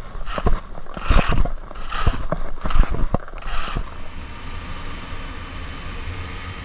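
Skis scraping and chattering on packed snow through a series of quick turns, with wind noise. About four seconds in, this gives way to a steady low rumble and hiss from a motorcycle riding along a road.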